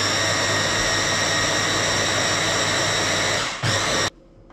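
Electric hand blender running steadily as it purees raw liver and eggs into batter. It stops about three and a half seconds in, runs again for a moment, then cuts off.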